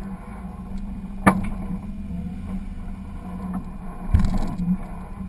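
A 4x4's engine running low and steady as it crawls over rocks. There is a sharp knock about a second in and a heavier thump about four seconds in, the vehicle jolting over the rocks.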